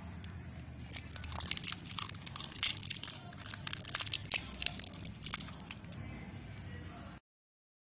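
Packaging being crinkled and torn open by hand: a dense run of crackles and rustles that cuts off suddenly into silence near the end.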